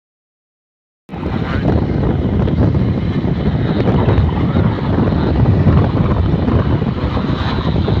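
Wind buffeting the microphone of a moving vehicle, with road and engine noise underneath. It comes in suddenly about a second in and then runs loud and steady.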